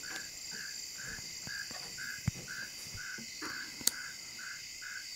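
Insect chorus of crickets: a regular chirp about twice a second over a steady high-pitched insect buzz, with two sharp clicks about midway.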